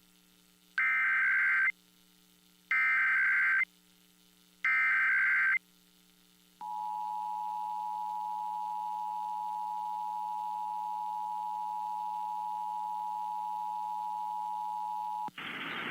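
Emergency Alert System alert tones: three screechy digital data bursts (the SAME header), each about a second long with about a second between them, then the steady two-tone EAS attention signal for about nine seconds, which cuts off suddenly.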